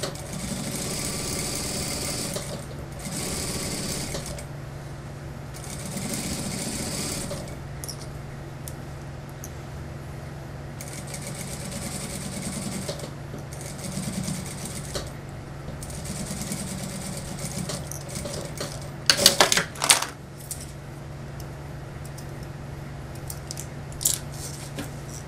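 Industrial single-needle sewing machine stitching a jacket hem in several short runs of one to two seconds, with pauses while the fabric is repositioned, over a steady low hum. A quick cluster of sharp, loud clicks comes about two-thirds of the way through.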